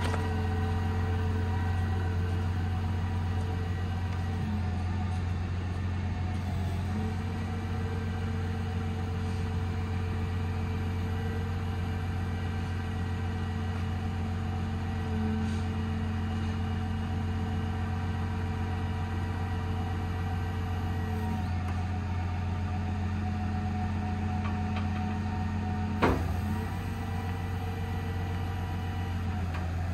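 Cummins 6.7 diesel running steadily to power the truck-mounted crane's hydraulics while the boom is raised: a steady low drone with higher tones that shift a few times. A single sharp clunk comes about 26 seconds in, after which the drone drops slightly.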